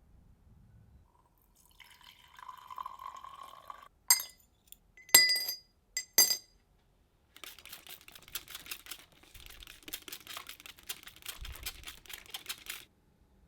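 Liquid poured into a glass container, then three sharp, ringing glass clinks, followed by about five seconds of fast, dense crackling.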